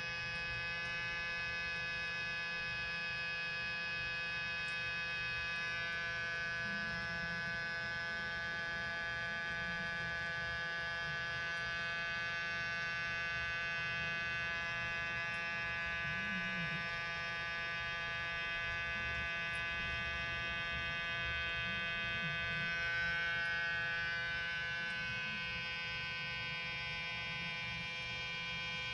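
Small handheld nebulizer running steadily, giving a continuous electric hum and whine as it puts out mist.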